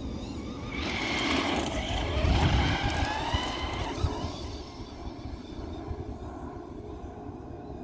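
Traxxas Rustler 4x4 VXL RC truck's brushless motor whining as the truck drives, the pitch of the whine sliding up and down from about one to four seconds in, then dying away. A low rumble of wind and ground noise runs underneath.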